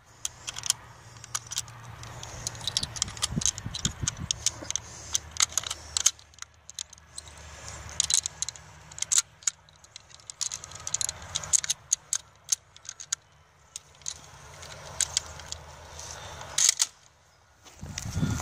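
Brass 7.62x54R rifle cartridges clicking and clinking, irregularly, as they are pressed one by one into the magazine of a Mosin-Nagant 91/30 through its open bolt.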